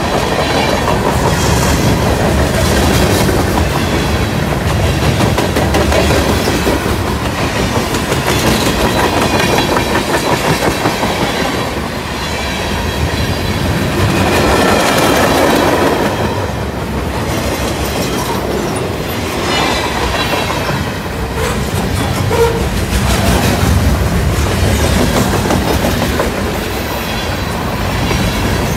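A CSX freight train's cars rolling past, their steel wheels clattering steadily over the rail joints.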